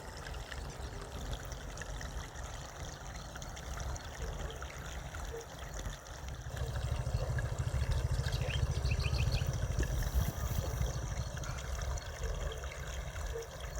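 A small stream of water trickling and flowing steadily, growing louder about halfway through.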